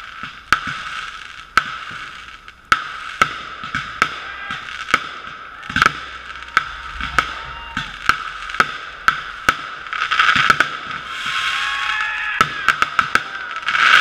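Fireworks going off: a run of sharp bangs about every half second to a second, thickening into a dense rattle of reports about ten seconds in and again near the end. The sound comes through a GoPro's waterproof housing.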